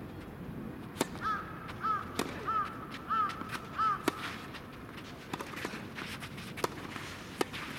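Tennis rally: sharp pops of racket strikes and ball bounces about once a second. A crow caws about six times in quick succession between about one and four seconds in.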